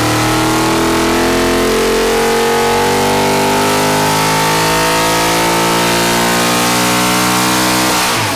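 416-cubic-inch LS V8 on an engine dyno making a wide-open-throttle pull, its pitch climbing steadily as the revs rise. Near the end the throttle closes and the sound drops off sharply.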